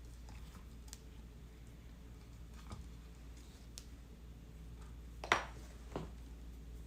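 Scattered light clicks and taps, then two sharper knocks about five and six seconds in, the first the louder: small objects being handled and set down on a hard work surface.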